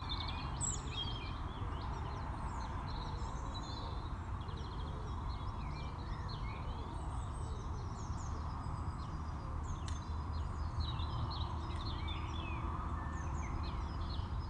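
Outdoor ambience: many small birds chirping and twittering, over a steady low background rumble.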